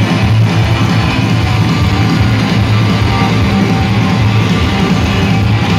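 A rock band playing live and loud, with electric guitar prominent, in a steady, dense wall of sound.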